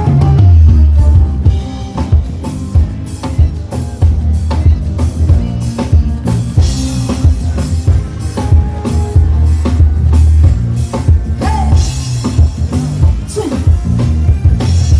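Loud music with a heavy bass line and a drum kit keeping a steady beat.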